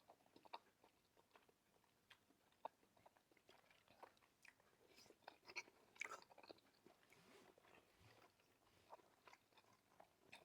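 Faint chewing and biting of a person eating meat, with irregular soft mouth clicks.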